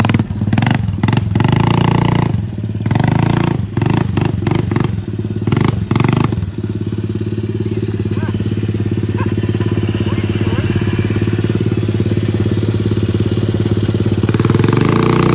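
Suzuki LT125 quad's 125 cc single-cylinder engine running, with a run of sharp knocks and clatter over the first six seconds or so, then running steadily, and getting louder near the end.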